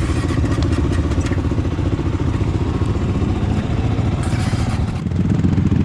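ATV engines running close by, a steady rapid putter with a slight change in tone and a little louder about five seconds in.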